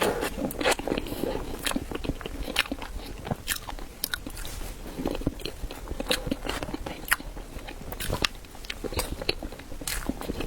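Close-miked biting and chewing of chilled ice bread: many irregular short, wet clicks and smacks of the mouth.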